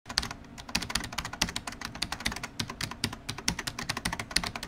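Computer keyboard typing sound effect: a rapid, uneven run of key clicks as text is typed out.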